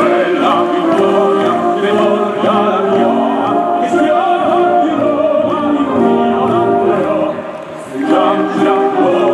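Operatic music: sung voices with a choir over an orchestra, sustained notes with vibrato, dipping briefly in loudness near the end.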